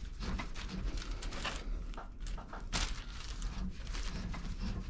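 Copper pipe being cut with a hand tube cutter: irregular clicks and scraping as the cutter is worked around the pipe.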